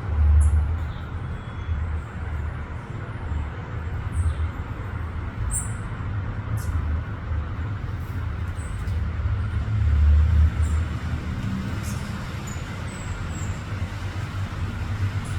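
Steady low rumble of road traffic, swelling briefly near the start and again about ten seconds in, with a few faint short high chirps scattered over it.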